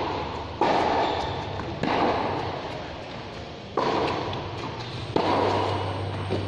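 Tennis racket strikes on a tennis ball, four sharp hits a second or two apart, each ringing on with a long echo in a large covered hall.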